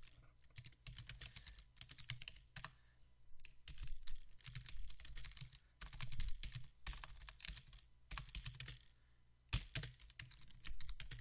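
Typing on a computer keyboard: runs of key clicks in bursts, with short pauses between words and lines.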